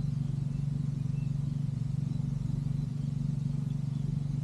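An engine idling: a steady low hum with an even, rapid pulse.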